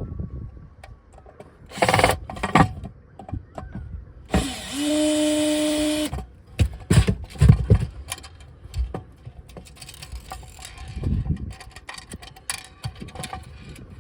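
Knocks and clatter of metal light-fitting parts being handled and worked on. A small power tool motor runs at a steady pitch for about two seconds a little before the middle, as if driving out a screw.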